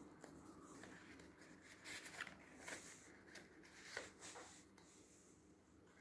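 Faint rustling and a few small crinkles of a handmade paper card as its folded hearts are pressed closed and opened by hand.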